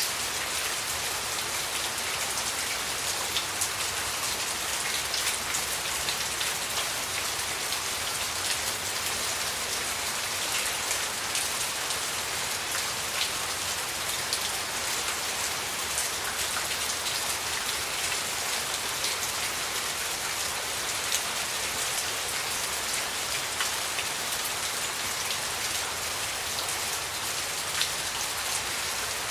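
Steady rain: an even hiss with many small, distinct drop hits, unchanging throughout.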